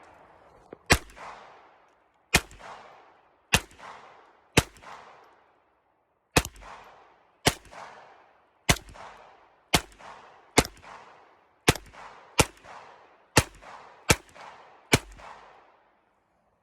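Taurus TX22 .22 LR pistol fired in slow, steady succession: fourteen sharp shots about one a second, each followed by a short echo.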